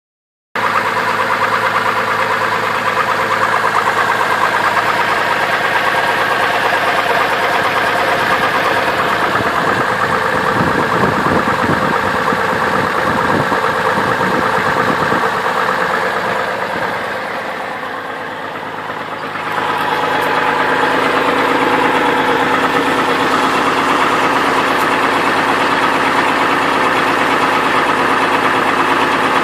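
2002 Chevrolet Trailblazer's 4.2-litre inline-six running at idle with the accessory belt removed, a knock in it that the owner takes for rod knock, not a bad water pump or other belt-driven part. It goes quieter for a couple of seconds past the middle, then steadies again.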